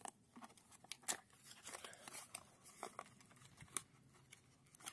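Small cardboard box being opened by hand: its flaps scraping, bending and folding back in a run of crisp clicks and rustles, the sharpest about a second in and near four seconds.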